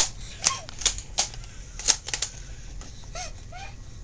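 About half a dozen light, irregular clicks and knocks from objects being handled, with a couple of faint short squeaks near the end.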